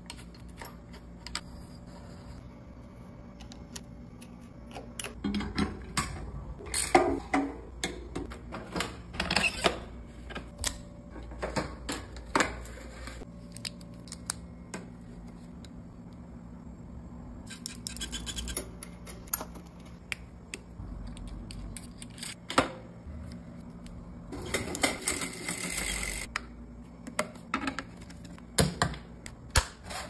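Irregular clicks, taps and light metallic rattles of bicycle parts being handled and fitted by hand, such as a hydraulic disc brake caliper and a rear derailleur, with two longer scraping stretches of a second or two. A faint steady low hum runs underneath.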